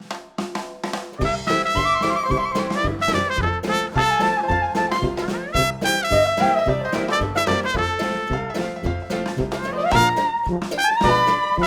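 Background music with a steady beat that comes in about a second in, under melodic instrumental lines.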